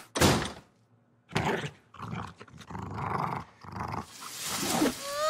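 A door shuts with a bang. Then a cartoon corgi dog makes a series of dog noises in four or five short runs, ending in a rising whine.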